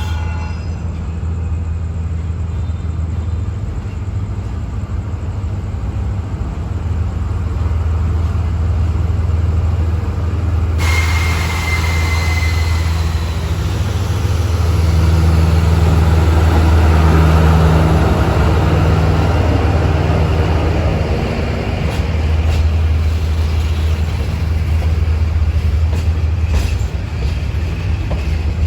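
Running noise of a moving passenger train heard from inside a coach: a steady low rumble, with a louder rushing noise breaking in suddenly about eleven seconds in and a brief high squeal just after.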